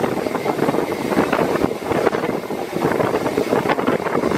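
Rhaetian Railway Bernina Express train running: a steady noise of wheels on the track with constant small rattles and clicks, heard from an open carriage window with wind buffeting the microphone.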